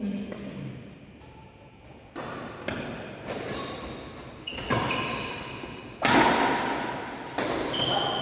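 Badminton rally: a shuttlecock struck back and forth with rackets, about six sharp hits at uneven spacing that echo in a sports hall, the loudest about six seconds in. Brief high squeaks from players' shoes on the court floor come between the hits.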